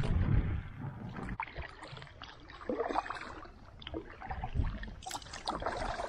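Canoe paddle strokes in the water: irregular swishing and splashing, loudest at the start, with further strokes about three seconds in and again near the end.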